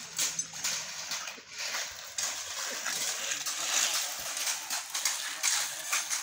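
Hoes and shovels scraping and chopping through wet ready-mix concrete being spread on a road, an irregular run of gritty scrapes and knocks.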